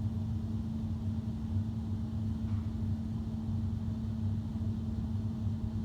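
Central air conditioning system's indoor air handler running: a steady blower hum with a constant low tone and air moving through the return.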